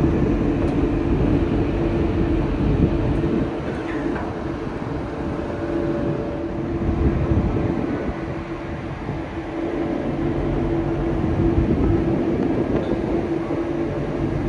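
Car ferry's engines droning steadily, a constant hum of a few steady tones over an uneven low rumble.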